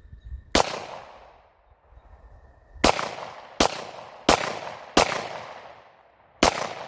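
Six gunshots, each followed by a long fading echo: a single shot about half a second in, then after a pause of about two seconds a string of four shots roughly 0.7 s apart, and one more near the end.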